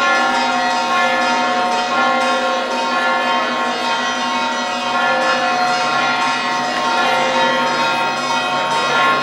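Church bells ringing continuously, their strikes overlapping into a steady peal.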